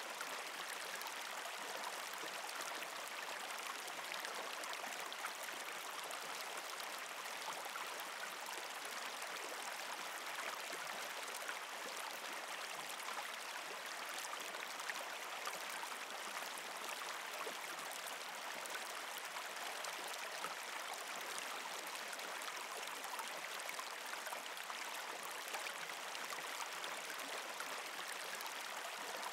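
Running water flowing steadily, an even rushing trickle with no pauses or changes.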